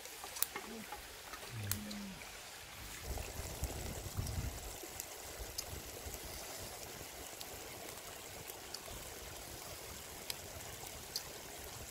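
Shallow stream running steadily over rocks, with a few scattered sharp clicks.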